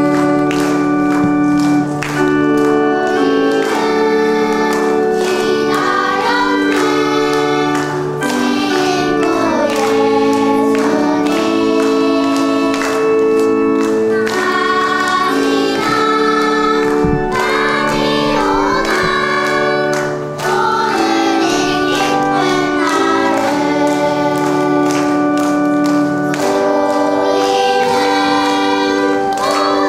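A group of children singing a celebratory First Communion hymn together, over held chords from an instrumental accompaniment.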